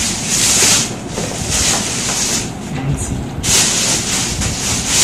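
Clear plastic bag crinkling and rustling in repeated loud bursts as an electric thermal pot is pulled out of it and the wrapping is pushed aside.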